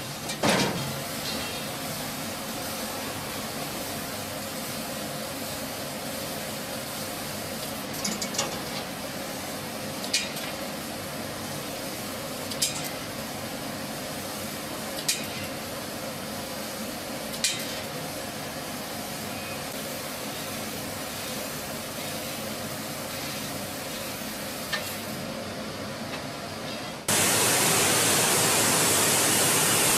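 Laser cutting machine working on steel: a steady hiss with a louder burst at the start and sharp clicks about every two and a half seconds. About 27 seconds in it gives way abruptly to a much louder, steady rushing noise from a glass forming machine.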